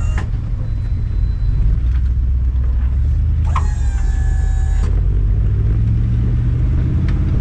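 Tow truck on the move with a vehicle hooked up on its wheel lift: steady low engine and road rumble. A brief high-pitched tone sounds for about a second midway through.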